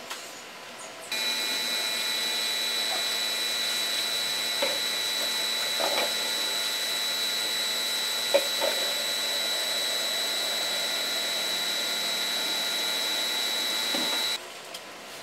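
A small electric motor-driven appliance, such as a washer or blower, switched on about a second in. It runs steadily with a high whine, with a few light knocks while it runs, then cuts off suddenly near the end.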